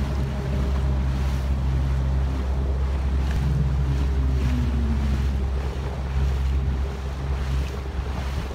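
Small motorboat's engine running steadily under way, a low even hum, with wind buffeting the microphone.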